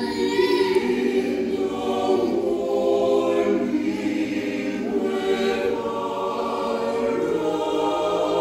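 Mixed-voice high school a cappella choir singing without accompaniment, the full ensemble coming in together at the start and holding sustained chords.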